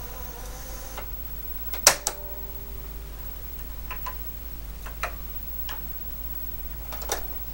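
The Sharp MZ-80A's built-in cassette deck whines faintly as it finishes rewinding, stopping about a second in, followed by a loud mechanical clunk from the deck. Then come a few sharp clicks of computer keys being typed and, near the end, the clunk of a cassette deck key being pressed.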